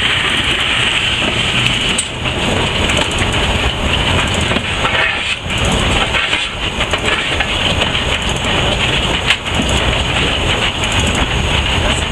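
Steam locomotive heard from its cab while on the move: a loud, steady rush of steam noise with scattered knocks and clanks.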